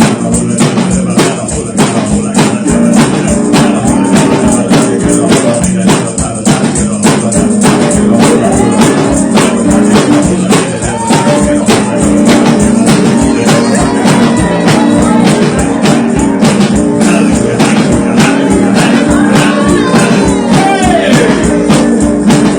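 Gospel music: singing over held chords, driven by a steady, fast tambourine beat.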